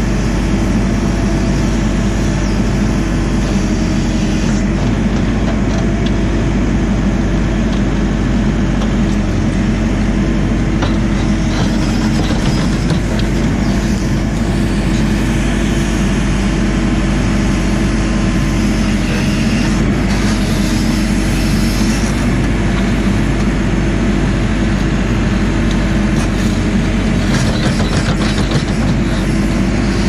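JCB 4CX backhoe loader's diesel engine running steadily under load as the backhoe hydraulics work the arm and bucket through gravel. Scattered scrapes and knocks from the bucket in the gravel, clustered at a couple of points.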